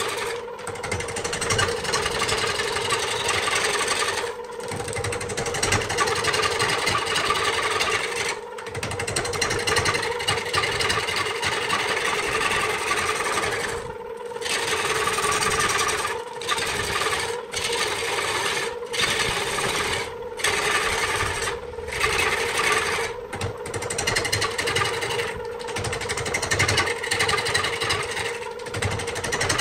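Wood lathe running with a steady hum while a hand-held turning tool cuts into a spinning wood blank, making a coarse, continuous cutting and scraping noise. The sound breaks off abruptly for a moment about a dozen times.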